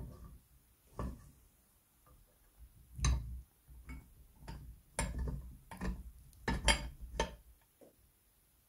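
Sharp metallic clicks and knocks, irregularly spaced, as the rollers, lever and fittings of an antique crepe iron are handled and fitted back together.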